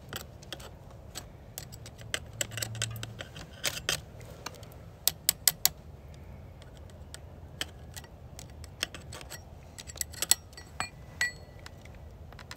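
Irregular metal clicks and scrapes as a screwdriver picks jammed wood chips out from around the drive sprocket and loosened chain of an Echo 7310 chainsaw, with a short ringing clink near the end. The chain had come loose and packed chips under it.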